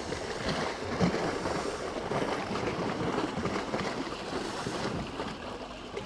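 Steady wind noise on the microphone with water lapping around a boat.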